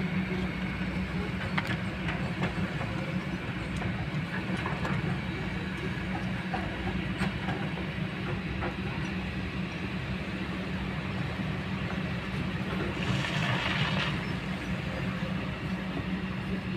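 Kobelco long-reach excavator's diesel engine running steadily under load as the arm swings and digs, a constant low drone. Scattered light clicks sound through it, and a brief hiss comes about three-quarters of the way through.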